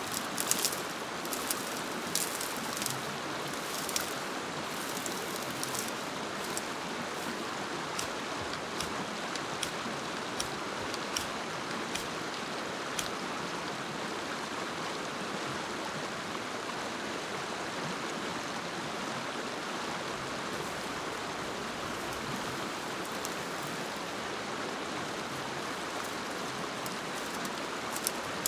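Steady rush of water, with scattered sharp ticks and taps through the first half and again near the end.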